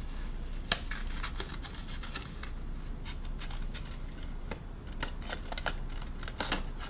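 Scattered light clicks and rustles of a paper decal sheet being handled and cut with scissors, the sharpest click near the end.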